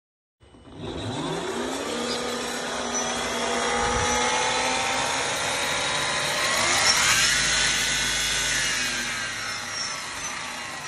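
Kaly XLR electric skateboard's motor and helical gear drive spinning a wheel off the ground, a motor-and-gear whine. It winds up about half a second in, climbs in pitch again around seven seconds in, then winds down.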